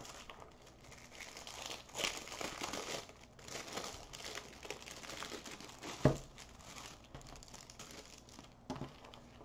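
Clear plastic packaging crinkling and rustling as it is handled, with a single sharp knock about six seconds in.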